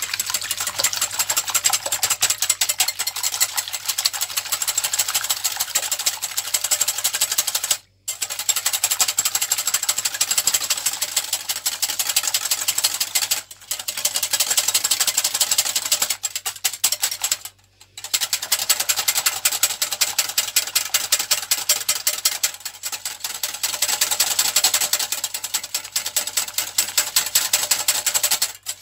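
Eggs being beaten by hand in a glass bowl, the utensil clicking rapidly and steadily against the glass, with three brief pauses.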